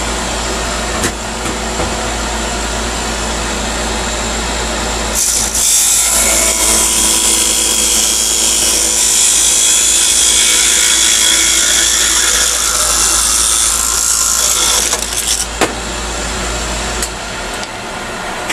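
Wood lathe running with a small turned chess piece spinning on it. From about five seconds in, a tool cuts into the spinning wood with a loud, harsh hiss for about ten seconds, parting the piece off. The low hum drops out near the end.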